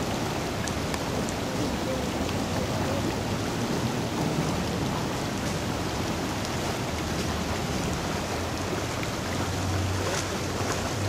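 Heavy rain falling steadily on a flooded street, with a low hum underneath that grows stronger near the end.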